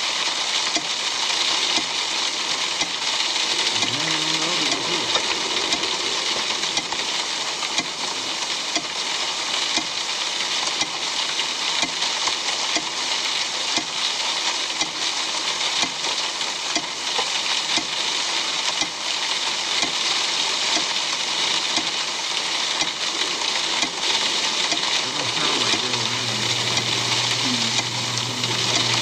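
Steady rain falling, an even hiss. A low steady hum comes in near the end.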